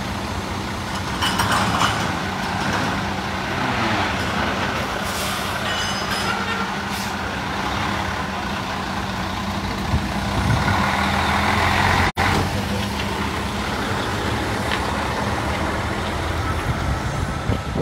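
Semi-truck tractor's diesel engine running with a steady drone as the truck moves off, fading away near the end.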